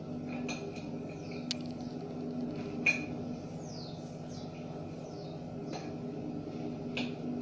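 A fork clinking and scraping against a plate about five times while food is cut and picked up, the sharpest clink about three seconds in, over a steady low hum. A few faint high chirps that glide downward come in the middle.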